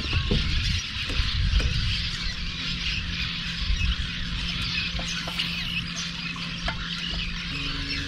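A flock of birds chirping and squawking continuously, a dense chatter of many overlapping calls. Under it, from about two seconds in, an electric trolling motor hums steadily, stepping up in pitch near the end.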